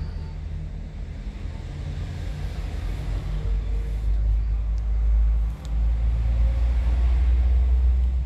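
Riding a motorbike through light city traffic: a steady low wind-and-road rumble that dips briefly about five and a half seconds in.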